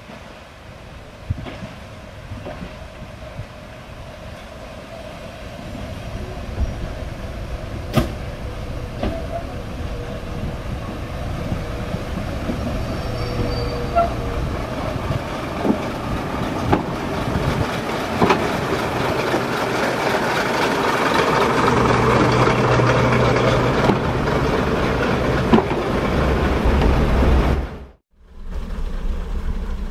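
First-generation diesel multiple unit approaching and running in alongside the platform: its diesel engines and wheels on the rails grow steadily louder, with a few sharp clicks along the way. The sound cuts off abruptly near the end.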